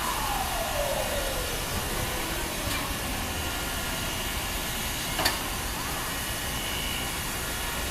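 Steady hiss of steam from a standing P36 steam locomotive, with two sharp clicks and a faint tone gliding downward in the first two seconds.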